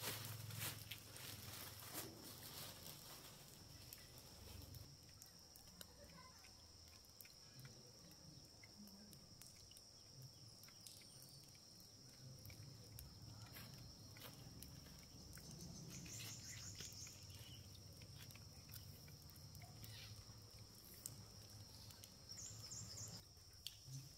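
Near silence: faint outdoor ambience with a steady high thin whine, two short bursts of high chirping, and a few soft rustles of a plastic bag being handled.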